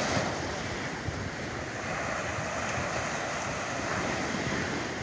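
Small waves breaking and washing up a sandy beach, with wind buffeting the microphone.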